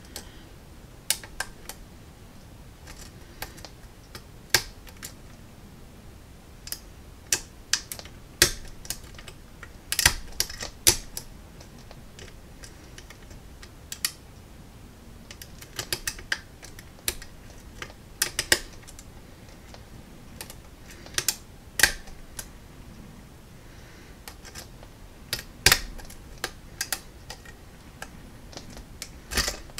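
Irregular light metallic clicks and ticks of an offset diamond lock pick and tension wrench working the pin stack of an Arrow six-pin rim cylinder, with a few sharper clicks scattered through.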